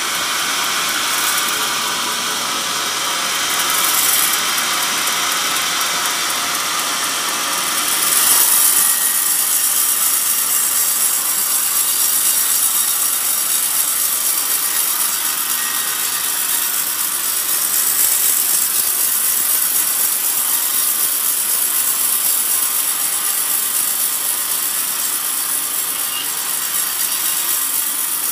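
Old sawmill band saw cutting through a coconut log fed past the blade on the log carriage: a loud, steady hiss of the blade in the wood that grows brighter and louder about eight seconds in.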